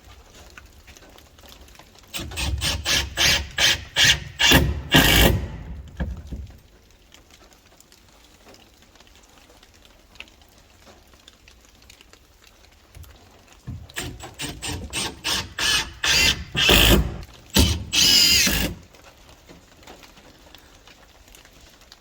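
Two bursts of quick repeated strokes from a tool working wood, about three a second and growing louder, each lasting about four seconds.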